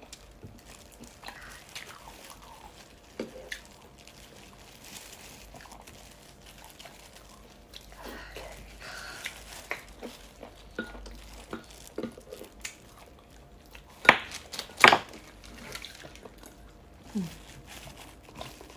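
Eating soup from a bowl: scattered soft clinks of a spoon or utensil against the dish, with liquid and chewing sounds, and two sharp knocks about fourteen and fifteen seconds in.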